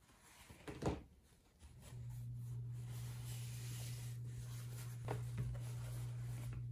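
Denim jeans being handled, with a short fabric rustle about a second in and another about five seconds in, over a steady low hum that drops out at the start and comes back about two seconds in.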